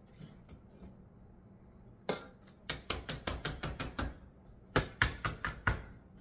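Spatula knocking and scraping against a stainless steel mixing bowl while scooping out whipped butter: two quick runs of sharp taps, several a second, the second run the loudest.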